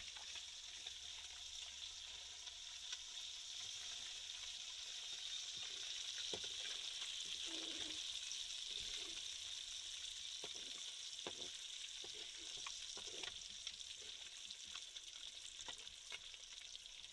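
Masala-coated fish frying in hot oil in a pan: a steady, faint sizzle with scattered light clicks and knocks.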